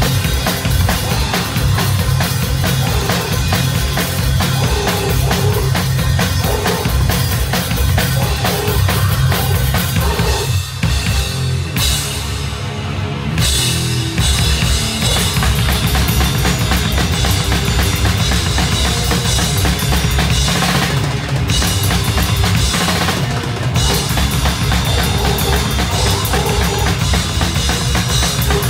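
Live death metal band playing loud, heard close to the drum kit: fast, dense drumming with bass drum and snare to the fore over amplified guitar. The top end thins out briefly about twelve seconds in.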